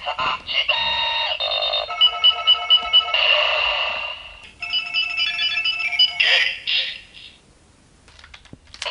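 Ixa Riser toy gun playing its electronic "Scouter Search" sound through its small speaker: a run of synthesized beeps and tones, with five evenly spaced pulses about two seconds in and a second beeping pattern from about four and a half seconds. The sound stops about seven seconds in.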